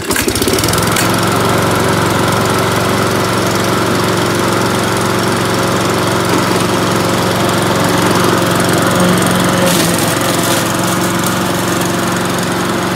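Ryobi self-propelled lawn mower's 160 cc petrol engine, just pull-started, catching at once and then running steadily at a high, even speed.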